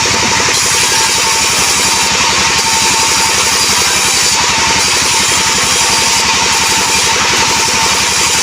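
Band sawmill cutting an albasia log: a steady, loud sawing noise with a constant whine, over the fast, even pulsing of the engine that drives it.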